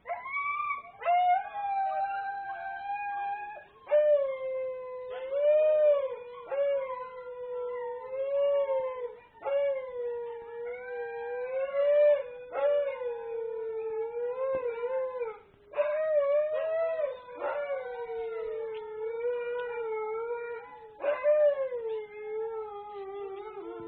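Several huskies howling together in long, wavering, overlapping howls. Fresh howls break in every few seconds.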